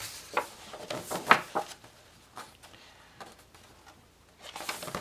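Paper pages of a paperback colouring book being handled and turned: a few soft rustles and taps in the first couple of seconds, then a brief papery swish near the end.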